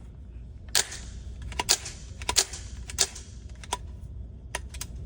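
Gunshots at an indoor shooting range, heard muffled as a string of sharp cracks at irregular spacing. The loudest four fall in the first three seconds, each with a short echo, and fainter shots follow.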